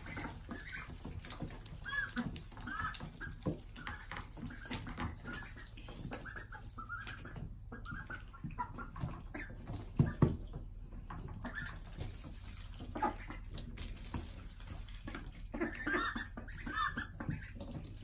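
Ducklings peeping: many short, high calls in quick strings, with brief lulls. A couple of louder bumps come about ten seconds in.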